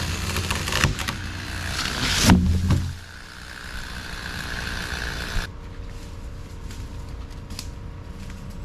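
An engine running steadily at low speed, then shutting off about three seconds in.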